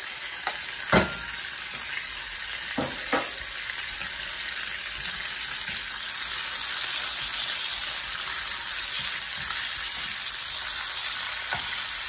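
Bacon sizzling in a cast iron skillet as a lump of clarified butter melts into the hot fat and is stirred with a wooden spatula. There is a sharp knock about a second in and two lighter knocks around three seconds, and the sizzle grows a little louder from about six seconds in.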